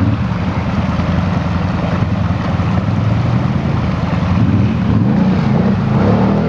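ATV engine running under load as the quad climbs a muddy, rutted slope, its note shifting with the throttle.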